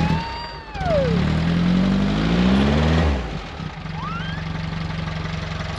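VW Kombi engine starting up: it catches about a second in and revs with rising pitch, then drops to a steady idle about three seconds in, which is the start of a morning warm-up before driving.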